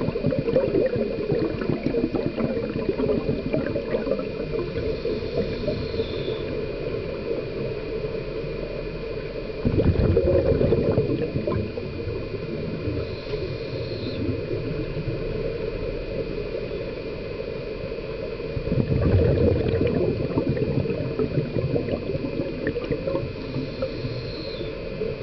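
Underwater sound of a scuba diver's breathing: exhaled bubbles from the regulator gurgle up twice, loudly for a second or two each, over a steady low rush of water.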